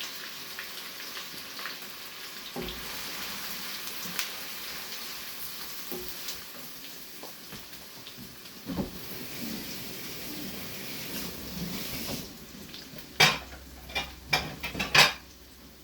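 Onion and garlic sizzling in hot oil in a pan while being stirred. About twelve seconds in the sizzle drops away, and a utensil knocks sharply against the pan four or five times.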